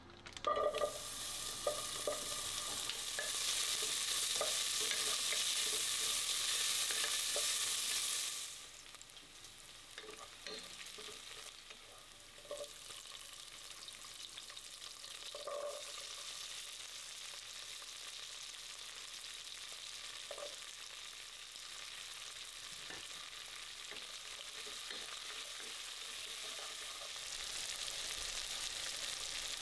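Chopped pancetta and vegetables frying and sizzling, loud for the first eight seconds or so, then settling to a quieter sizzle. A utensil stirring them knocks against the pan now and then.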